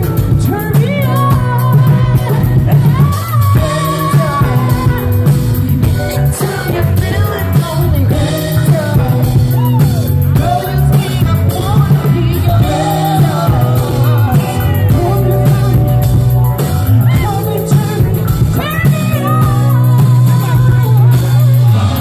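Live band music: a male singer singing into a microphone over electric guitar and drums, with deep held bass notes underneath.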